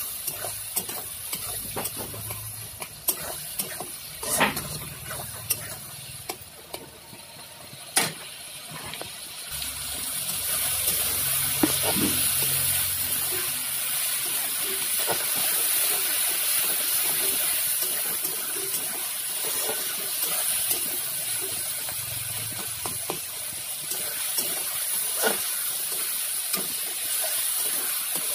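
Chopped onions, tomatoes and bay leaves sizzling in hot oil in a steel karahi, with a spatula clicking and scraping against the pan as they are stirred. The sizzle grows louder and steadier about ten seconds in.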